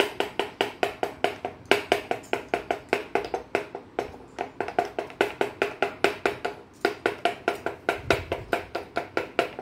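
Small toy wooden pestle pounding in a wooden mortar, as if crushing garlic: rapid, even taps, about five a second, each with a brief ringing tone.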